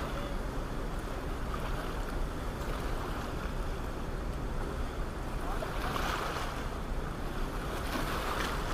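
Rushing whitewater released through an open dam, pouring over rocks as a steady, unbroken rush of water noise.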